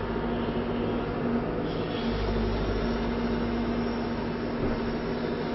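Backhoe's diesel engine running steadily at working RPM while the backhoe digs and swings, with a steady hum; the low rumble gets heavier about two seconds in.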